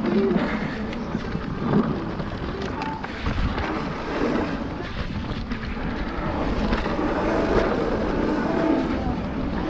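Mountain bike riding down a dirt trail: wind buffeting the microphone and tyres rolling over dirt and rocks, with many small knocks and rattles from the bike over the bumps.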